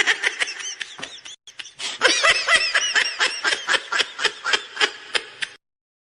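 Laughter: a long run of short, pitched laughs, about four a second, with a brief break a little over a second in, cutting off suddenly near the end.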